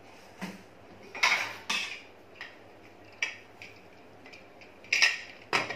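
Metal clanks and clinks of a pressure cooker lid being handled and fitted onto the cooker, in several separate knocks, the loudest about a second in and near the end.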